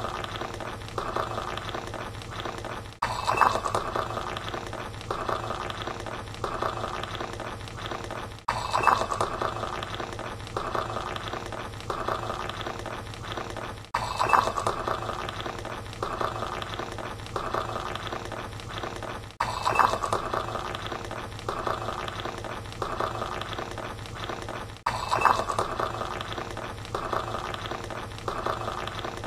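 Tea being poured into a cup, a steady splashing stream with light clinks. The same stretch of about five and a half seconds repeats over and over, each time starting with a louder splash.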